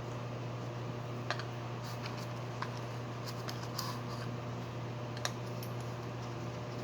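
A few sharp light clicks and taps of small grinder parts being handled during cleaning, spread out a second or so apart, over a steady low hum.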